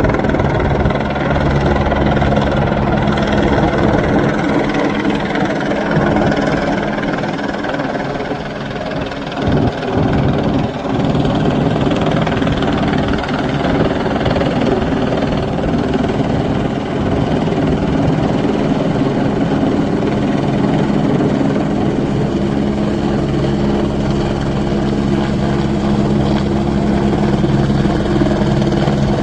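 Rescue helicopter running steadily, its engine and rotor making a loud, continuous hum with steady tones.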